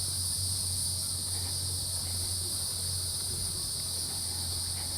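A steady outdoor insect chorus, high and continuous without a break, over a faint low steady hum.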